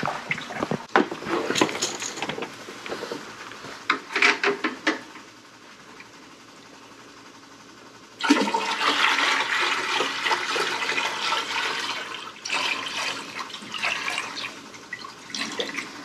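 Water poured from a plastic bucket into the tank of an ultrasonic humidifier: a steady splashing, rushing stream that begins about halfway through and runs on, with one short break. Before it, a few knocks and rattles as the bucket is handled.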